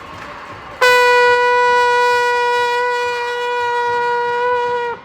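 Arena scoreboard horn at a basketball game sounding one long, steady blast of about four seconds, starting about a second in and cutting off suddenly.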